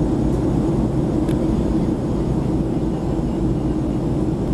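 Steady in-flight cabin noise of a Boeing 737 heard from a window seat over the wing: a constant low drone of engines and rushing air.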